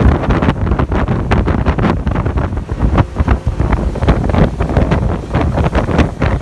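Wind buffeting the microphone as a small open boat runs across the water, with an uneven rush of spray and water splashing against the hull.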